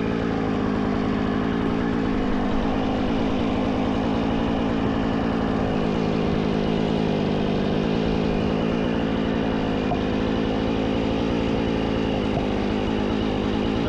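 Jonsered two-stroke chainsaw running steadily at high revs without a break, as when noodling cherry wood along the grain.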